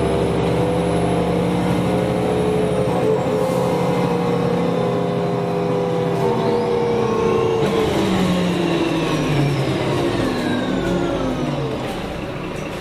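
Karosa B951E city bus heard from inside the cabin, its engine and Voith four-speed automatic drivetrain running under way. About halfway through, the engine tones and a faint whine fall in pitch and the sound eases off as the bus slows.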